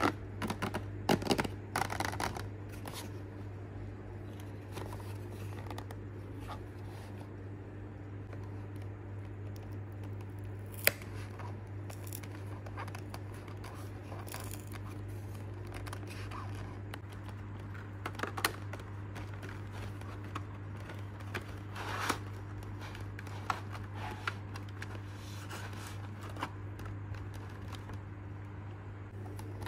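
A cardboard retail box being handled and opened: scattered scraping, rubbing and tapping of cardboard and its plastic window as the end flap is worked open. Several sharp clicks, the loudest about eleven seconds in, over a steady low hum.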